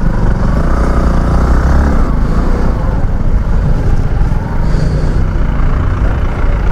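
A Bajaj Platina motorcycle's single-cylinder four-stroke engine runs at low speed as the bike edges between stopped cars and trucks in a traffic jam, with their engines idling around it.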